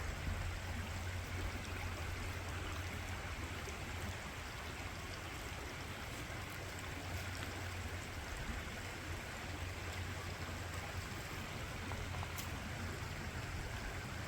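Small stream running steadily over rocks, a continuous water rush.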